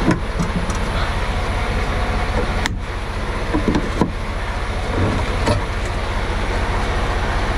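Semi-truck's diesel engine idling steadily, with a few sharp metal clanks from the air-line couplings and their mounts as they are handled, the clearest just under three seconds in and again a second later.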